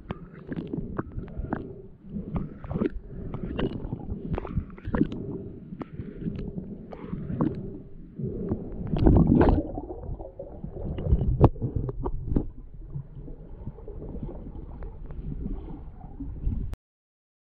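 Muffled underwater sound picked up through a camera's waterproof housing. Water sloshes and gurgles, with scattered knocks and clicks, and is loudest about nine seconds in. It cuts off suddenly near the end.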